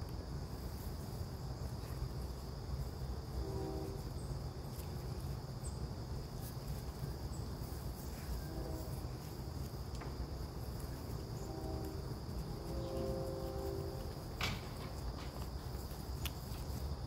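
Outdoor insect chorus, a steady high-pitched chirring drone, with a low rumble underneath. A few brief low pitched sounds come through, and there is a sharp click near the end.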